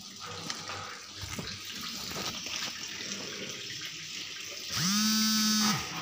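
Water running and splashing onto a concrete cattle-shed floor. Near the end a cow moos once, a loud call of about a second that rises at the start and drops away at the end.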